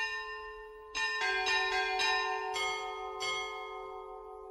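Church bells ringing: a single strike, then about a second in a quick run of several more strikes over the next two seconds. The ringing tones hang on and slowly fade.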